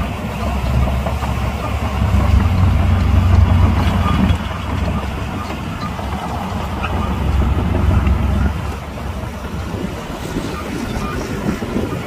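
Diesel engine of heavy earthmoving machinery running with a deep rumble, swelling louder twice for a couple of seconds each as it takes load, then easing off.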